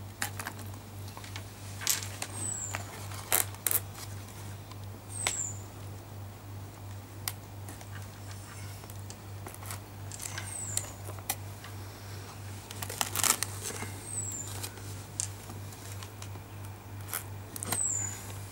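Scattered clicks and knocks of foam and plastic parts being handled and fitted together as the wings of a scratch-built twin-boom RC plane are seated. A short high falling chirp recurs five times, and a steady low hum sits underneath.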